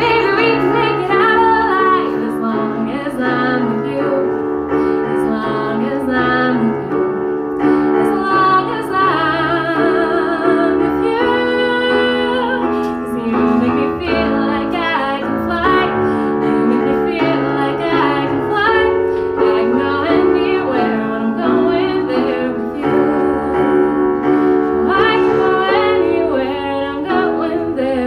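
A woman singing a pop song live, accompanying herself on a Roland stage keyboard set to a piano sound. She holds several notes with vibrato about eight to thirteen seconds in.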